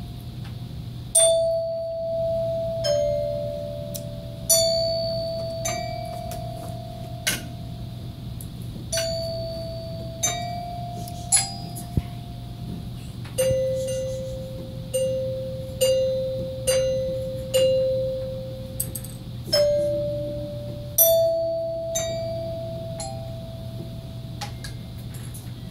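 A simple tune played slowly on tuned bells, one struck note at a time, each ringing and fading before the next; the melody steps among a few notes and drops lower in the middle. A steady low hum runs underneath.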